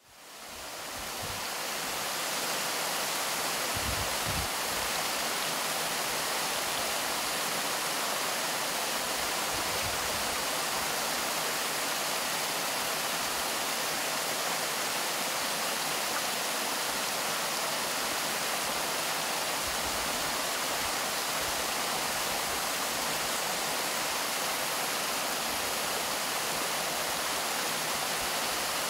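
Small waterfall cascading over rocks into a stream pool: a steady rush of running water, fading in over the first couple of seconds.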